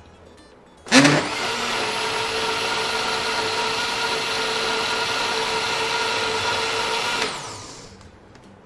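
High-speed countertop blender switching on with a quick rising whine about a second in, running steadily for about six seconds as it purées pumpkin soup with soy milk, then switching off and winding down.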